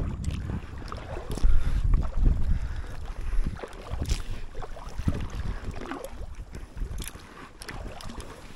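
Wind buffeting the microphone in gusts, strongest about two seconds in, with small water splashes from kayak paddle strokes.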